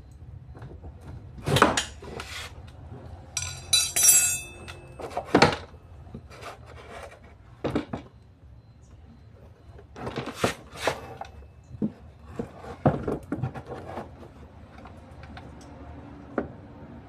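Hand tools and metal parts clinking and knocking as they are handled, a dozen or so separate knocks, with a short ringing metallic rattle about four seconds in.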